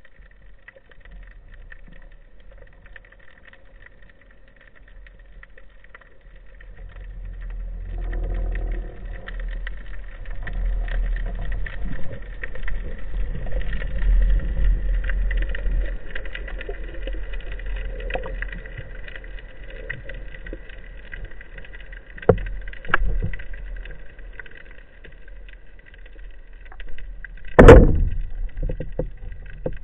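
Underwater sound through the housing of a camera mounted on a speargun. A low water rumble from the diver's movement swells in the middle, over a faint, steady, high whine. A few sharp knocks come near the end, the loudest about two seconds before it.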